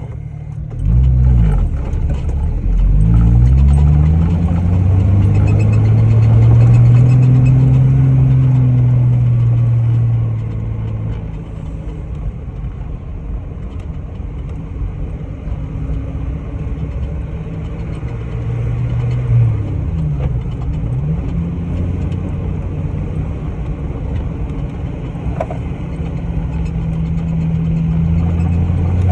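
Off-road vehicle's engine accelerating up through the gears with rising pitch, held at speed, then easing off and running more quietly. Near twenty seconds in the engine note dips and climbs again.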